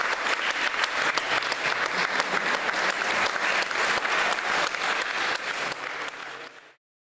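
Audience applauding: many hands clapping in a dense, steady patter that fades away and cuts off abruptly near the end.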